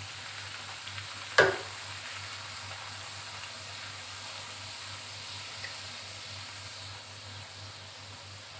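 A wheat-flour pakwan flatbread deep-frying in hot oil in a pan, with a steady sizzle as a wooden spatula moves it about. One sharp knock about a second and a half in.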